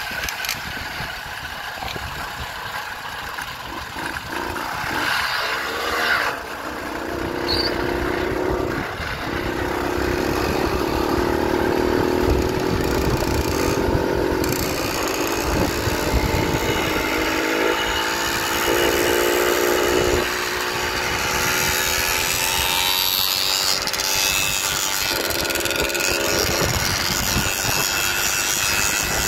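Small gasoline engine of a motorized bicycle running under way, its buzz rising and falling in pitch with the throttle, over a rough rumble of wind on the microphone.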